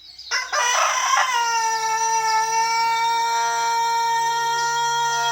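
Long-crowing rooster (galo cantor) crowing: a few choppy opening syllables, then one long, steady held note.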